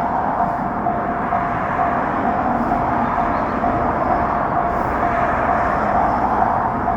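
Railroad crossing alarm ringing in a steady repeating clang, about two rings a second, while a JR Shikoku 1000-series diesel railcar runs through the crossing with a continuous rolling rumble.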